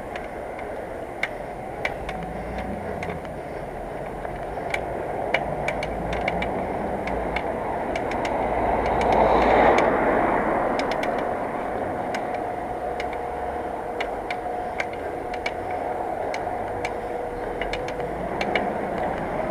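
Road and traffic noise heard from a moving bicycle: a motor vehicle swells past about halfway through, over a steady rush, with sharp irregular ticks throughout.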